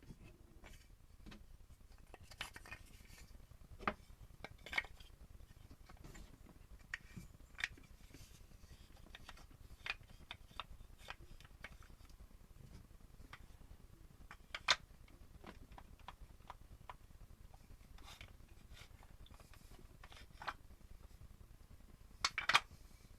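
Irregular small clicks and knocks of a wooden train coupler and its wooden cars being handled and coupled. There is a sharper knock about fifteen seconds in and a quick cluster of clicks near the end.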